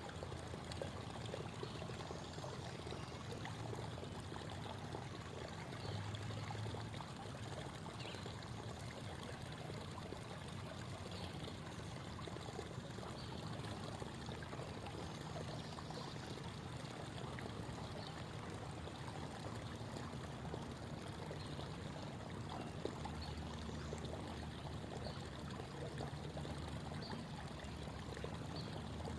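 A creek babbling and trickling: a steady, unbroken rush of flowing water.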